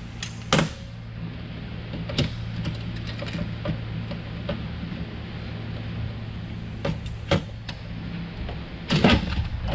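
Scattered clicks and knocks of a server's metal riser bracket and slot cards being worked loose and handled. The loudest click comes about nine seconds in, over a steady low hum.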